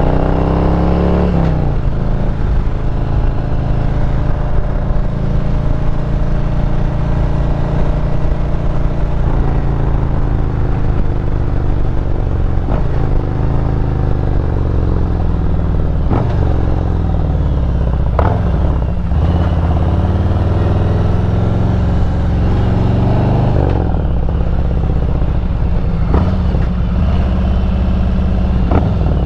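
2017 Harley-Davidson Road Glide Special's Milwaukee-Eight 107 V-twin running under way. The engine pulls up in pitch and drops back several times as the rider accelerates and changes gear.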